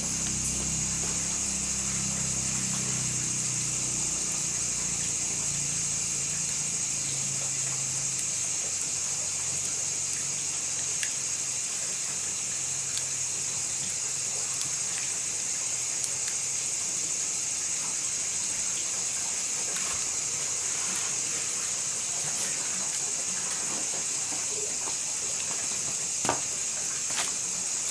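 Open wood fire burning, with a few sharp crackles, more of them near the end, over a steady high hiss. A low hum fades away over the first several seconds.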